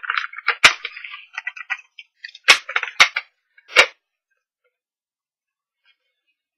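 Sharp plastic clicks and soft rustling as a Stampin' Up! ink pad case is set down on the mat and snapped open, four loud clicks among the softer handling noises, all within the first four seconds.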